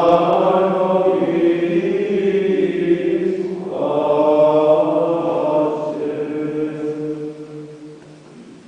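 Voices singing a slow liturgical chant in two long phrases of held notes, the second dying away near the end.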